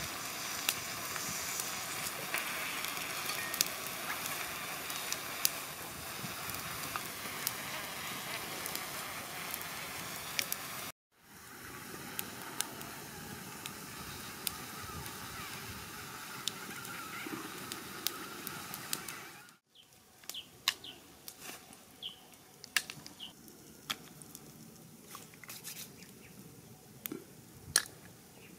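Snails in their shells grilling on a stick rack over wood embers, sizzling and crackling with many sharp pops. The sound cuts out briefly twice, and in the last part it is quieter, with scattered pops and clicks.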